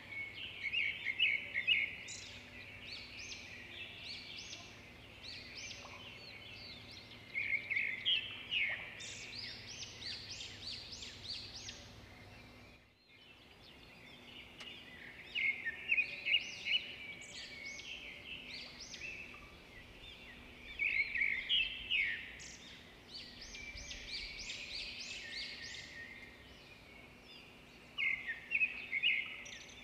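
Small birds chirping and chattering in repeated bursts of quick high notes, with a faint steady low hum underneath; the sound drops out for a moment about halfway through.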